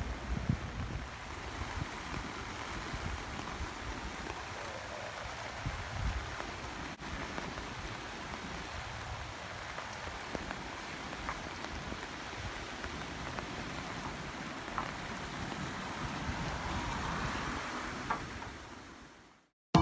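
Strong post-typhoon wind blowing, with gusts buffeting the microphone in low, uneven rumbles; it fades out near the end.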